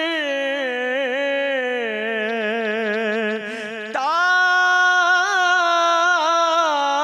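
Man singing an unaccompanied manqabat, a devotional song in praise of Husain, into a microphone. He draws out one long, wavering, ornamented note, then starts a louder new phrase about four seconds in and holds it.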